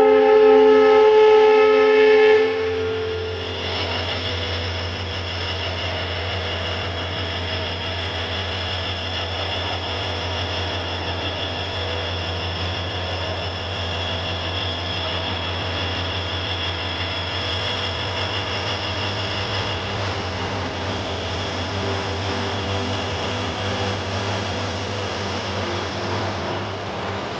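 WDP-4D diesel locomotive's horn sounding, cutting off about two and a half seconds in, followed by the steady rumble of the passenger train pulling out and its coaches rolling past.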